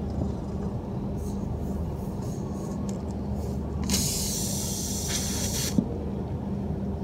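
Air hissing out of the nail hole in an inflated motorcycle tyre for nearly two seconds, starting about four seconds in, as a spiral reamer is worked in and out of the puncture. A steady low hum sits underneath, with a sharp tick near the end of the hiss.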